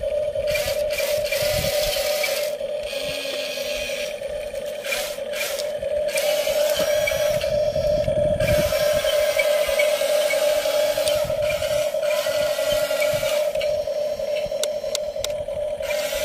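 Huina RC bulldozer's electric track motors and gearboxes whining steadily as it crawls, with the plastic tracks and blade scraping and clicking over a log and gritty soil.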